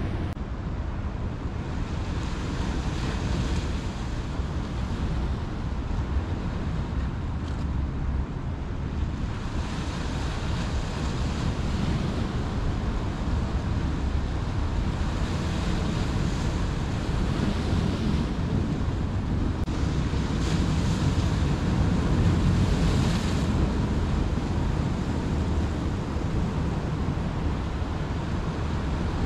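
Surf washing over a rocky shore: a steady low rumble of the sea, with the hiss of a breaking wave swelling up every few seconds.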